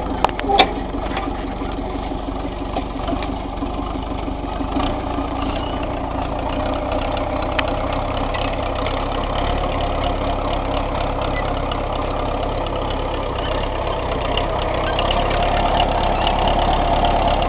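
Crawler tractor's engine running steadily as it pulls a disc hiller through soil, with a couple of sharp clicks about half a second in and a slight rise in loudness near the end.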